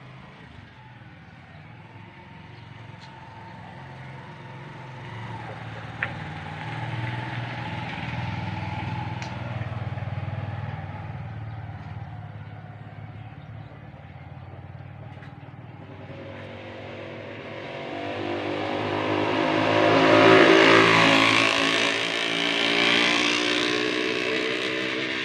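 Motor vehicle engines passing by: a quieter pass in the first half, then a louder one that builds about two-thirds of the way through and peaks before easing off. A single sharp click sounds about a quarter of the way in.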